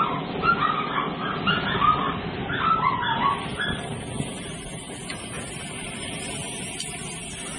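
A run of short, high animal calls, about two a second, that stop about three seconds in. Under them is the steady rush and sizzle of a gas grill flaring up under bacon-wrapped steaks, with a thin high hiss joining after the calls stop.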